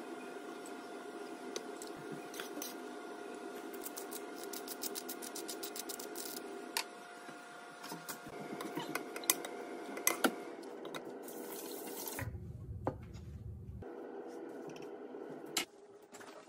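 Soup simmering and bubbling in a saucepan, with small clicks from a wooden spoon against the pot and a steady faint tone underneath. There is a short low rumble about twelve seconds in.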